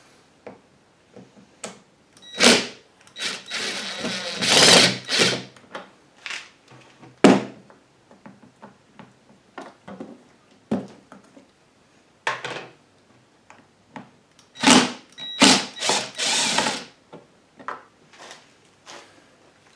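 Plastic cover of a WEN inverter generator being worked loose and taken off: irregular knocks, clicks and rattles of the panel and its fasteners, with two longer busy stretches about three seconds in and again around fifteen seconds in.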